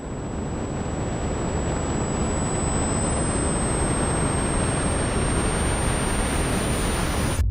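Steady roar of rushing wind and aircraft noise from a plane in flight, growing slightly louder, with a thin high whistle slowly rising in pitch; it cuts off suddenly near the end.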